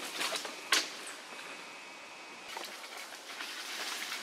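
Rustling and crackling of leaves and twigs in several short spells, with one sharp click under a second in, over a steady outdoor hiss; a faint high thin tone sounds through the middle.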